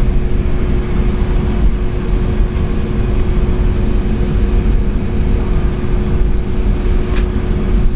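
Cabin noise inside a Boeing 757-200 taxiing before takeoff: a steady low rumble from the jet engines at low power, with a steady hum over it. There is one short click about seven seconds in.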